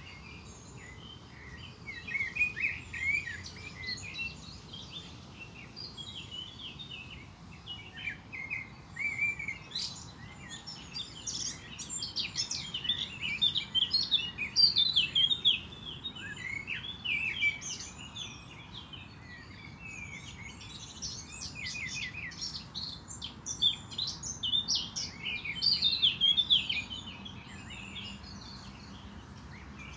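Several small songbirds chirping and singing together in quick, short notes, busiest in the middle and again near the end, over a low steady background hum.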